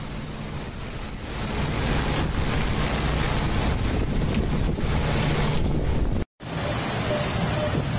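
Storm noise: a dense, steady rush of heavy cyclone rain and wind, with wind buffeting the microphone. It cuts out for a moment about six seconds in, then a similar rush resumes.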